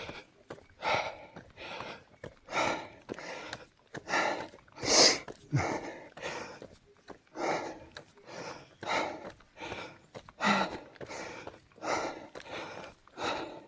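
A person breathing hard and fast close to the microphone while exerting uphill, with a steady rhythm of loud breaths about one every second.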